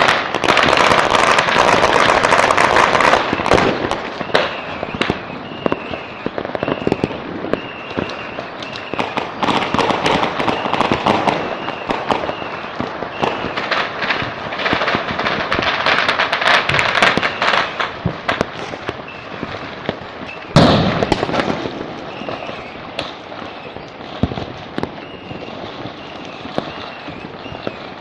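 Dense, continuous crackle of firecrackers and fireworks going off all around, with one louder bang about three-quarters of the way through.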